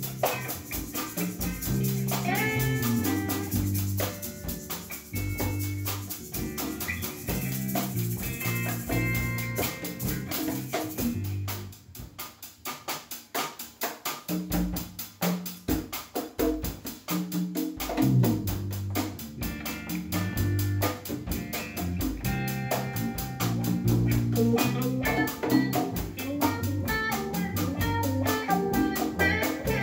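Live band playing a song on electric guitar and electric bass over a steady drum beat. It drops to a thinner, quieter passage a little before halfway, then builds back to the full band.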